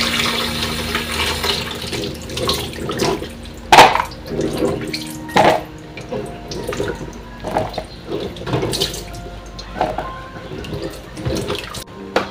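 Kitchen tap running into the sink onto diced green papaya on a tray for the first couple of seconds. Then splashing and sharp knocks as the wet pieces are swished and shifted by hand on the tray.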